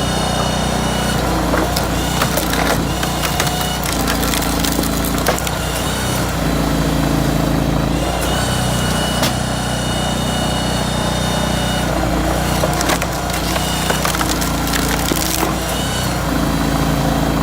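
Hydraulic log splitter at work: its engine drones steadily while logs crack and splinter under the wedge, with many sharp cracks throughout.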